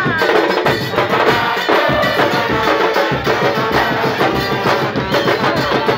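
A football supporters' band playing loudly: trombones and trumpets over a pounding drumbeat, with the packed crowd's voices mixed in.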